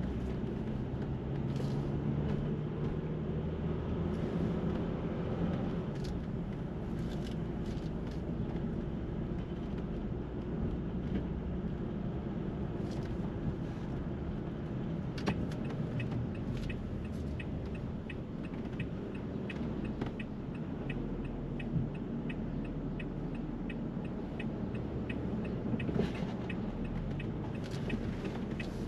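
City street traffic: a steady rumble of cars and engines, with a fast, regular ticking that starts about halfway through.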